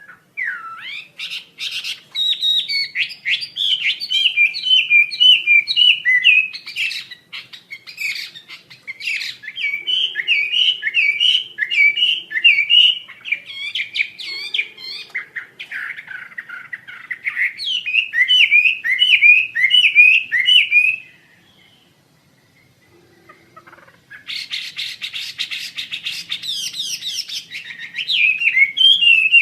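Wambi Asia songbird singing long, fast runs of chirping, twittering notes in several phrases. It falls silent for a few seconds about three-quarters through, then gives a harsh buzzy rattle before the chirping resumes near the end.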